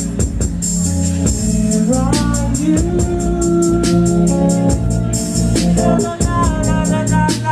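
Live band music in an instrumental passage: an organ-toned keyboard over bass and drums, with steady hi-hat ticks. Sliding keyboard notes rise in pitch about two seconds in.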